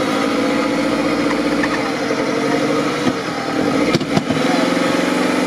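Off-road buggy's engine running under load, wavering in pitch, as its mud tyres spin and throw mud while it is winched up a mud bank. A couple of sharp knocks come about four seconds in.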